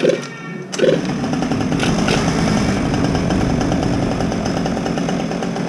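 Yamaha Jog two-stroke scooter engine of a mini bike running, getting louder about a second in and then holding steady. By the owner's judgement it runs fine even after two months left standing.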